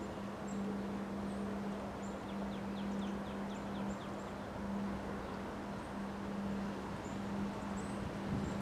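Wind blowing steadily in a windstorm, with small birds chirping high and thin and a quick run of about eight chirps between two and three seconds in. A low steady hum runs underneath and drops out briefly a few times.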